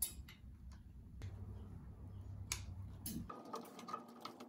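Faint clicks and taps of hands handling wire connectors and the ceiling fan's housing against its metal mounting plate, with a few sharper clicks near the end. A low background hum cuts off abruptly about three seconds in.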